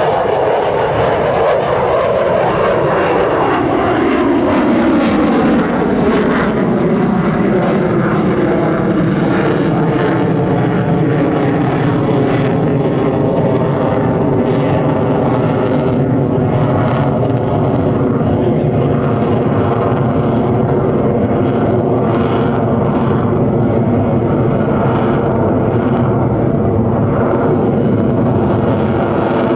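Jet noise from an F-22 Raptor's two Pratt & Whitney F119 turbofans as it flies its demo, loud throughout. The pitch falls over the first five seconds or so as the jet passes by, then settles into a steady drone.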